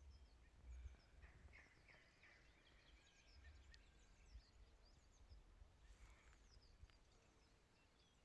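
Faint birdsong: many small birds chirping, short falling notes scattered throughout, over a soft low rumble.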